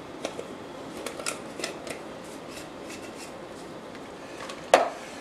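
Spice containers being handled: a scatter of light clicks and rustles, then one sharp click near the end.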